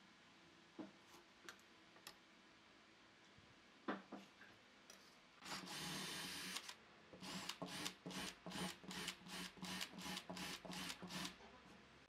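Cordless drill boring into a pine block: one steady run of about a second, then a string of short trigger bursts, about three a second. A few light taps come before it.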